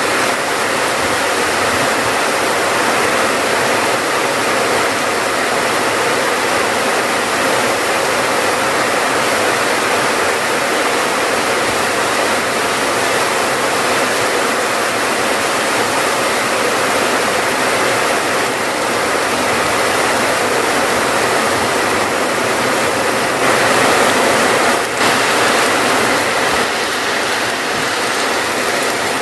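Steady heavy rain, an even dense hiss of falling water.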